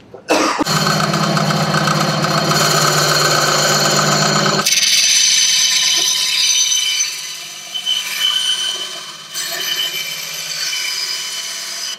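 A vertical bandsaw runs and cuts through a notched plastic kayak foot-peg rail, giving a steady motor hum and blade noise. About four and a half seconds in, the low hum drops away abruptly. After that the sawing goes on somewhat quieter and more unevenly.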